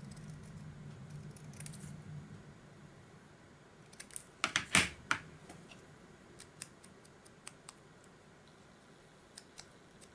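Scissors snipping thin paper: a quick run of sharp snips about halfway through, the loudest part, followed by scattered light clicks and ticks of small paper pieces being handled.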